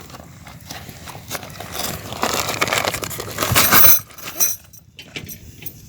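Camping gear being handled: rustling of a bag, with a cluster of metallic clinks about three and a half seconds in from aluminium tent stakes knocking together.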